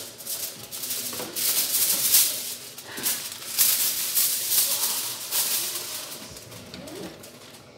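Irregular rustling and shaking noise in uneven bursts, loudest in the first half and trailing off toward the end.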